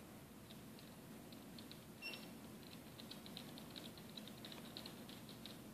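Faint, quick light clicking and tapping, growing busier in the second half, like animal claws on a wooden floor as a capybara and a cat shift about. A brief high squeak sounds once about two seconds in.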